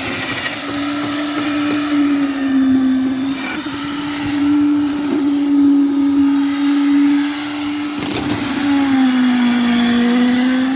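Concrete needle vibrator running steadily with a strong motor hum while its poker is worked into freshly poured slab concrete; the pitch sags and recovers twice.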